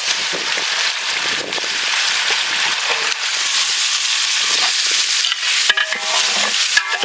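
Chopped tomatoes sizzling loudly and steadily in hot oil as they fry with onions and ginger-garlic paste, the sizzle swelling a little as it goes. A few brief pitched tones sound near the end.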